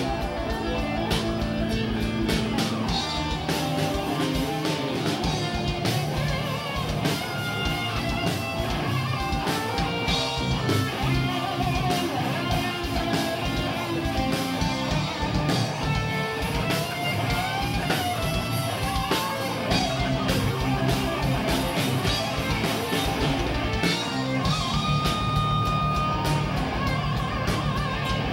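Power metal band playing live: distorted electric guitars, bass and drums over a fast, even kick-drum pulse. A lead guitar melody bends between notes and holds one long note near the end. No singing.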